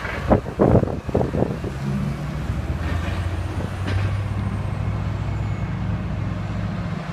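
Diesel engine of a log-laden articulated lorry pulling away, running with a steady low drone. Several loud knocks come in the first second and a half.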